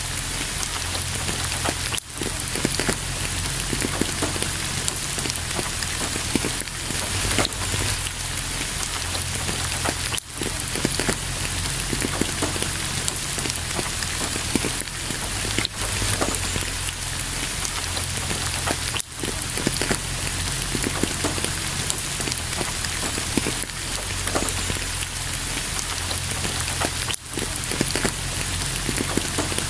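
Steady heavy rain falling on surfaces, a dense even hiss full of individual drop patter, that cuts out for an instant several times.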